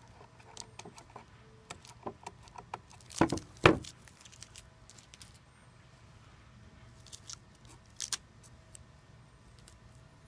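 Scattered light clicks and taps of handling, with two louder knocks a little over three seconds in and another near eight seconds.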